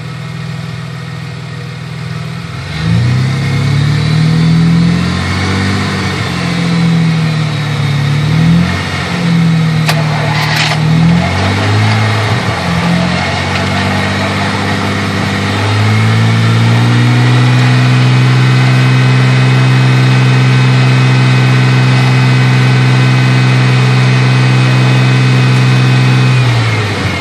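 Truck engine idling, then revved up and down repeatedly, then held at a steady raised speed for about ten seconds before dropping back at the end: revved to push more current into a jump start of a car that won't crank into life. A couple of sharp clicks about ten seconds in.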